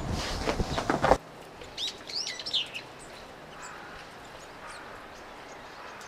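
Small birds chirping: a quick run of short rising-and-falling chirps about two seconds in, then a few faint single chirps. Before that, a loud rumbling noise cuts off abruptly just over a second in.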